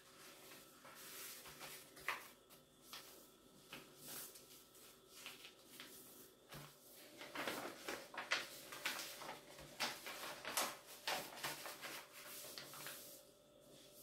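Sheets of paper being folded and creased by hand: faint rustling and crinkling with short scrapes as fingers slide along and press down the folds, busier and louder for a few seconds past the middle.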